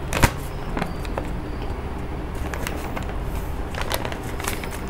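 Light rustling and handling noises with a sharp click about a quarter second in, over a steady low room hum.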